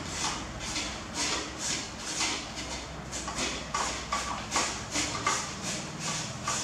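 Rhythmic scraping strokes of a hand kitchen tool on a raw vegetable over a ceramic bowl, about two strokes a second, each a short hissy rasp.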